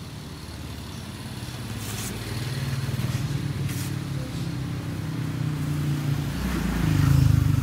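A motor vehicle's engine running close by, growing steadily louder and loudest near the end as it passes.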